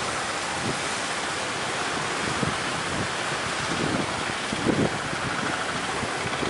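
Rough sea surf churning and breaking under a strong wind, with gusts buffeting the microphone, heaviest about four to five seconds in.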